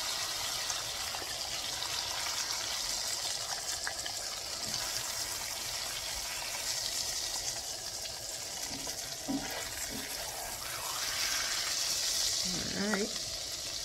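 Pork chops sizzling in hot fat in a cast-iron skillet, a steady even hiss that swells slightly after the middle.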